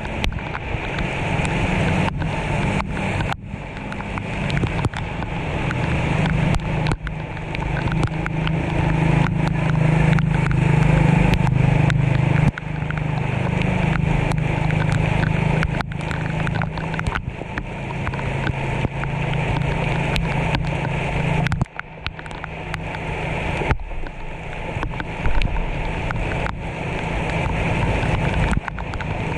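Heavy rain falling on a flooded street, a steady wash of noise with many scattered sharp taps. Under it runs a steady low engine-like hum that dips briefly about 22 seconds in.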